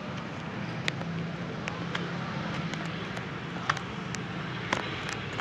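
Irregular sharp knocks of footsteps on wooden boards, over steady outdoor background noise.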